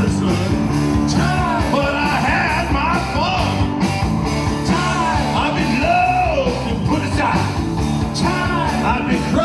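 Live rock band playing an instrumental passage: electric guitars, bass and drums over a steady beat, with a lead line bending up and down in pitch.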